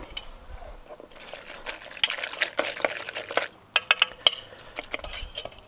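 Utensil clinking and scraping against a stainless steel pot while tagliatelle in a creamy carbonara sauce is stirred, with a string of sharp clicks from about two to four seconds in.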